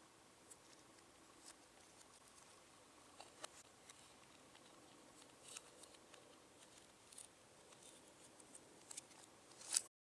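Faint scattered clicks and taps of a small screwdriver and plastic parts as the steering-wheel radio-control buttons and their plug are prised free. A sharper click comes near the end, then the sound cuts off suddenly.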